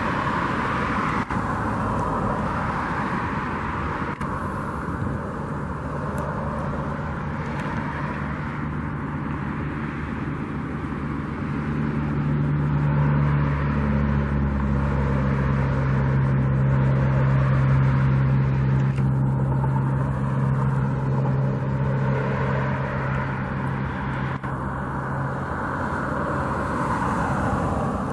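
Steady vehicle engine hum with road noise, growing somewhat louder through the middle before easing off again near the end.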